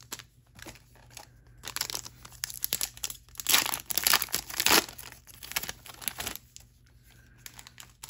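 Trading card pack wrapper being torn open and crinkled by hand: irregular crackling and ripping, busiest and loudest in the middle, dying down after about six seconds.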